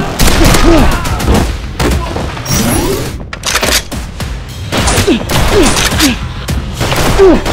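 Background music with a rapid string of sharp shots from toy foam blasters, some landing as booming hits.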